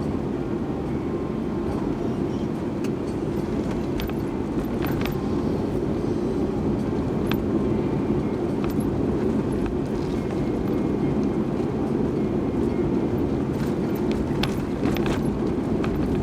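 Steady low rumble of a moving vehicle, with a few faint clicks over it.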